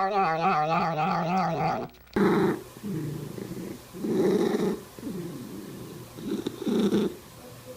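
A cat's drawn-out, wavering vocal call that falls in pitch and breaks off about two seconds in. It is followed by a string of short, low rumbles, each about half a second long, with pauses in between.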